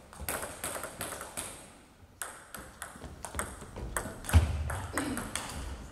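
Table tennis ball ticking sharply off rackets and the table in an irregular series of clicks as a rally is played, with one heavier impact and a low thump about four and a half seconds in.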